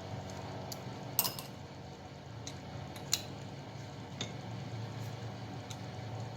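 Light metallic clinks of a socket wrench being fitted onto exhaust manifold nuts, a few separate taps with two sharper ones about one and three seconds in, over a steady low hum.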